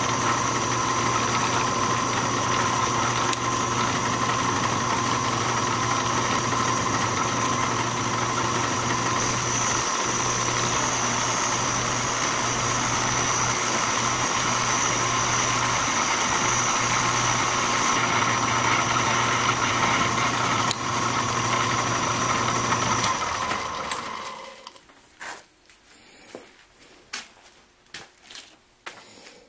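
Small belt-driven bench metal lathe running steadily, its motor and drive giving a steady hum with a high whine. Near the end it is switched off and runs down within about a second, followed by a few light, scattered clicks and knocks.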